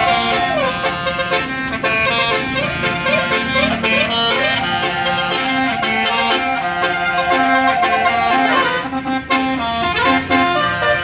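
Bus basuri telolet horn, a multi-note musical air horn, playing a loud tune of held notes with short slides between them.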